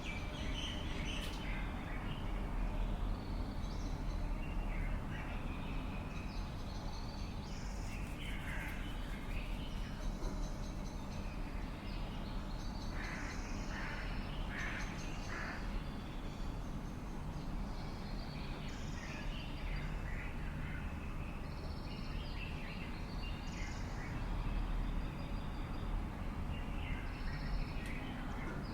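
Several birds calling on and off throughout, with a run of about four harsh calls in quick succession near the middle, over a steady low rumble.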